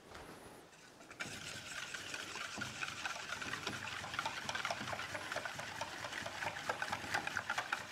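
Buttermilk marinade with added salt and za'atar being stirred briskly in a bowl, starting about a second in: a steady liquid stirring with rapid small clicks of the utensil against the bowl.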